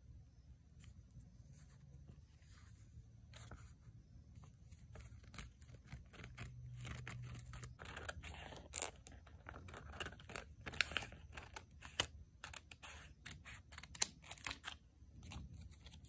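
Scissors cutting around paper journaling stickers: a run of short, sharp snips with paper rustling, starting about a third of the way in and thickening toward the end.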